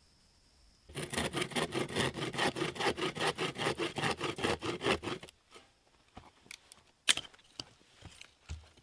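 Rapid rhythmic scraping strokes, about five a second, for about four seconds, followed by a few light clicks and one sharp knock.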